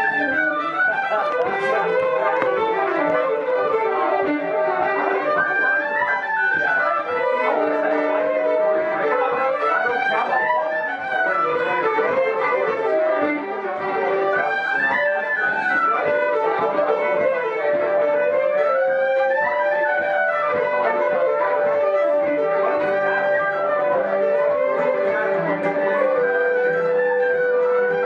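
Irish traditional session music: fiddles with other folk instruments playing a tune together in fast running notes, with one long held note through the second half.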